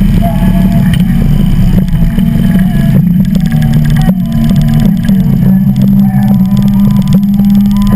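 Harley-Davidson V-twin engine running steadily under way at city-traffic speed: a loud, even low rumble of engine pulses.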